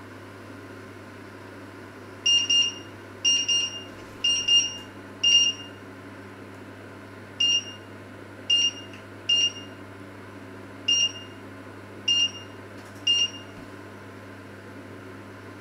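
Touch controls of a glass-top electric hob beeping as they are pressed: a series of short, high beeps, the first few in quick pairs, then single beeps about a second apart, starting about two seconds in and stopping near the end.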